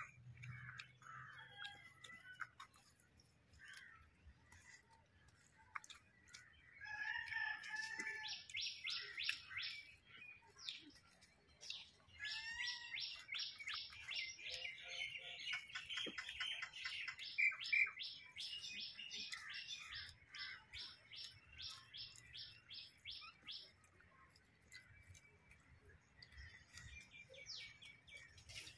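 Birds chirping, with a rapid series of short, sharp high notes, about five a second, repeated in long runs through the middle of the stretch.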